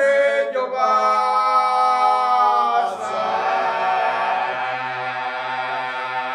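Traditional Sicilian sacred folk song sung a cappella by a male chorus with lead voice and bass: the voices hold a long chord, then about three seconds in settle onto a lower held chord with a low bass note beneath.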